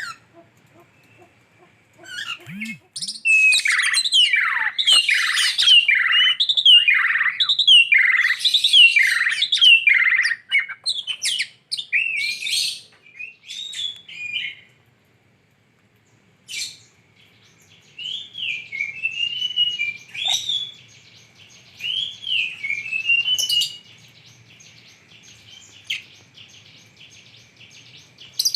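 Lovebird chirping: a dense, loud run of rapid chirps lasting several seconds, then scattered calls. Later come a few short notes that rise and fall, over a faint steady high tone.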